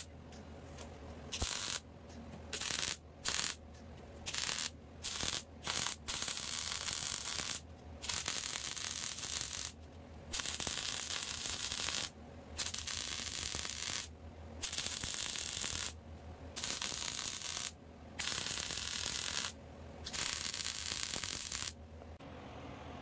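Welding arc crackling in a string of welds on clamped steel plate assemblies: several short tack bursts first, then longer runs of one to two seconds each with brief pauses between, stopping near the end.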